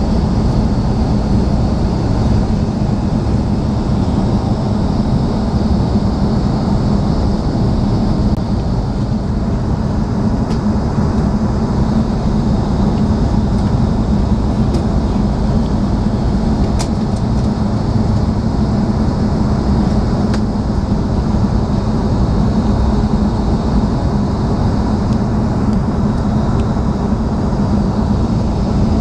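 Steady cabin noise of an Airbus A330 airliner in flight, heard from a window seat: a constant low rumble of engines and rushing air, with a hum and a thin hiss above it.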